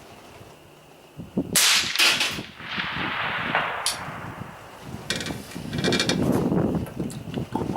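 A suppressed AR-15 (5.56) fires a shot about a second and a half in, with a second sharp report close after it. A fainter sharp tick follows a couple of seconds later, and then a stretch of rustling handling noise.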